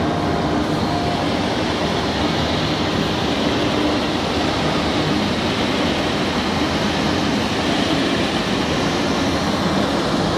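Heavy horizontal lathe running: a steady, loud mechanical drone from its headstock gearbox and large drive motor with its cooling blower.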